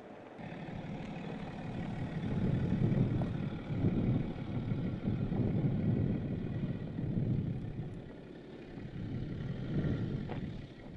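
BMW X5 xDrive30d's 3.0-litre straight-six turbodiesel running as the SUV drives slowly over rough dirt. The rumble grows louder about two seconds in, eases off briefly near the end, then picks up again.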